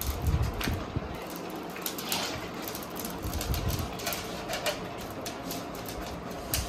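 Charcoal burning in an angithi brazier, crackling with irregular sharp clicks. Low thumps come near the start and again about halfway through.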